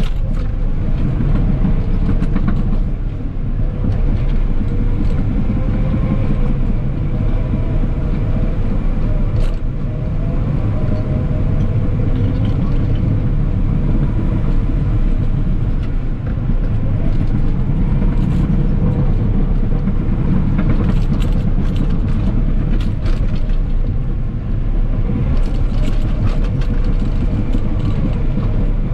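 Cat 963K track loader's diesel engine running steadily under load, heard from the operator's cab, with scattered clanks and rattles from the machine, most of them in the last third.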